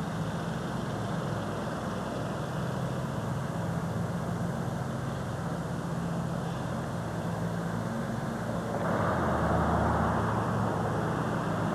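A steady low mechanical hum under a haze of noise, with the noise growing louder about nine seconds in.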